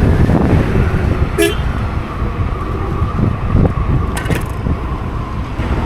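Wind buffeting the microphone and road traffic noise while riding an electric scooter, with a short horn beep about one and a half seconds in.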